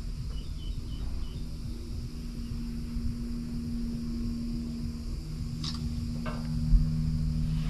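Cable car cabin riding the ropeway: a steady low mechanical hum and rumble, with a couple of faint clicks and a dull thump near the end.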